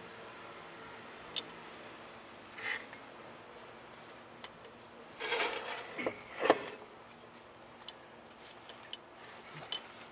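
Hand tools and metal parts clinking and scraping during work under a car's rear axle. There is a sharp click about a second in, scraping bursts in the middle, and the loudest metallic knock about six and a half seconds in, followed by scattered light clicks.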